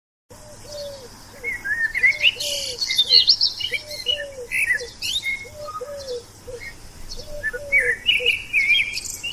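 Several birds chirping and calling, with quick high chirps over a lower three-note call that repeats five times, about every second and a half.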